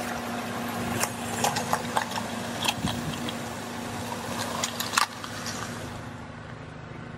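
A car tyre rolling slowly over a brick of dyed floral foam, crushing it with scattered crunches and crackles, the sharpest about five seconds in. The car's idling engine hums steadily underneath.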